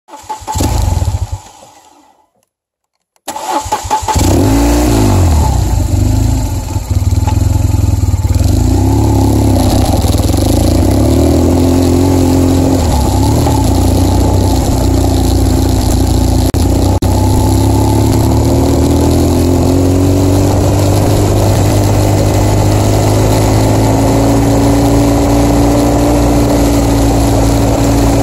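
BMW R1200GS boxer-twin engine running under way on a gravel road. A short burst of sound fades out and cuts to a second of silence, then the engine comes back in, its revs rising and falling as the bike pulls along, and then it runs steadily with the revs slowly climbing.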